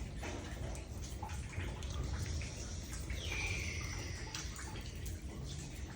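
Rainwater leaking through the ceiling during a hurricane, dripping and splashing inside the house, over a steady low rumble. About three seconds in, a brief high whine falls in pitch and then holds for about a second.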